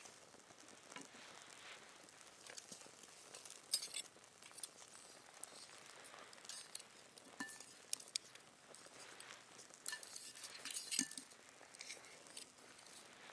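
Scattered light clinks and taps of utensils against dishes, irregular, with the loudest about four seconds in and a cluster around ten to eleven seconds.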